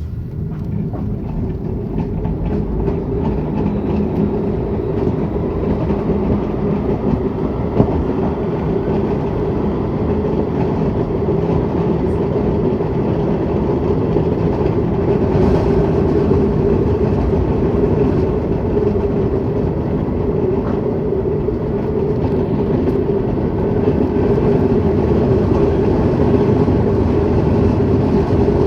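Tram running, its traction motor noise and rolling rumble steady and slowly growing louder. A single sharp click comes about eight seconds in.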